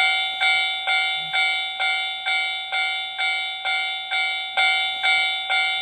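Japanese railway level-crossing warning bell ringing in a steady, even rhythm, a little over two strikes a second: the signal that a train is approaching and the crossing is closing.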